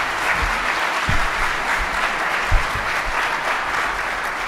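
Audience applauding steadily at the close of a talk, with a few dull low thumps mixed in.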